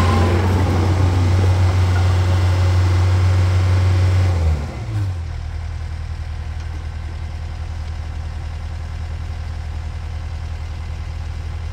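Takeuchi TL10V2 compact track loader's diesel engine running at high throttle, then throttled back about four and a half seconds in, falling in pitch and level to a steady idle.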